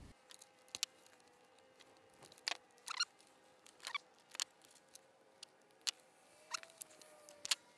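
Small plastic wiring parts, butt connectors and fuse-holder leads, being handled and fitted by gloved hands: about a dozen irregular sharp clicks and taps, some with a brief crinkle, over near silence.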